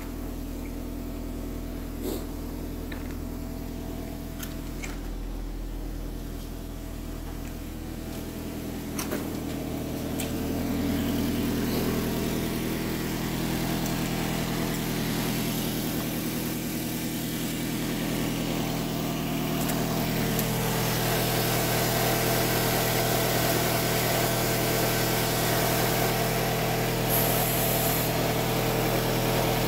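2006 Nissan Altima's 2.5-litre four-cylinder engine idling steadily, running smoothly with no revving. It gets louder about ten seconds in and again about twenty seconds in.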